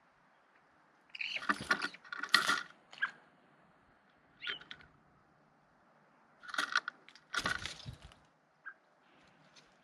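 Eurasian jay giving strange, scratchy, noisy calls in two bursts of several notes, about a second in and again about six and a half seconds in, with a few short single notes between and after.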